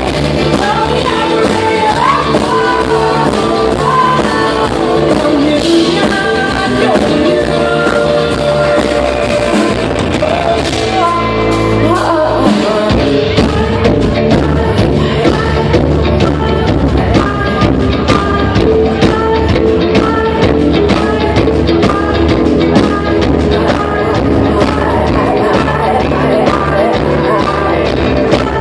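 Live rock band with a woman singing, loud and driving, heard through a hall's amplification.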